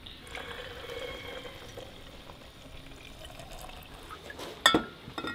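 Chicken broth pouring in a stream from a measuring cup into a glass mason jar, filling it. About a second before the end comes a single sharp, ringing clink, then a lighter one.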